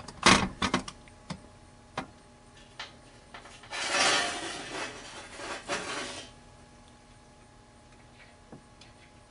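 Handling noise on a metal work surface: a quick cluster of knocks and clicks, a few scattered taps, then about two seconds of scraping and rustling as a soldering iron and a small LED bulb are picked up.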